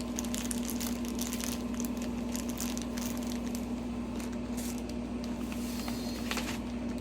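Rustling and light clicking of small plastic bags of screws being handled, over a steady low hum.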